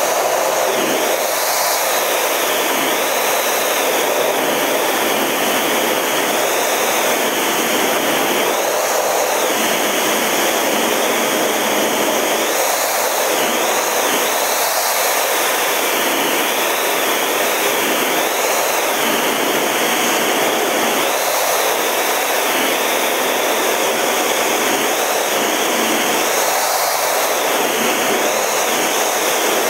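Steady, loud rush of engine and airflow noise inside the cockpit of a Snowbirds CT-114 Tutor jet trainer in flight.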